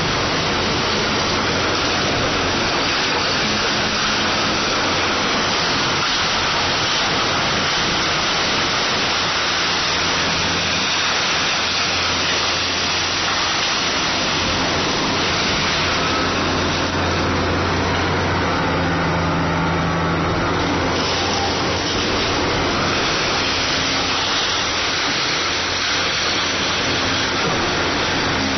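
Kobelco SK500 hydraulic excavator working on demolition: its diesel engine runs with a steady low hum under a dense, harsh wash of noise. About two-thirds of the way through, the hiss briefly thins and the engine hum comes forward.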